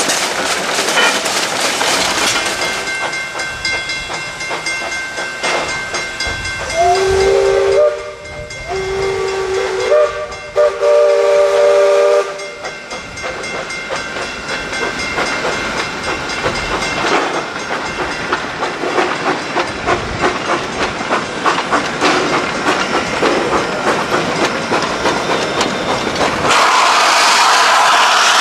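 Narrow-gauge 2-6-0 steam locomotive running with a rhythmic clatter, sounding two blasts on its chime whistle, the second longer. A loud hiss of steam comes in near the end.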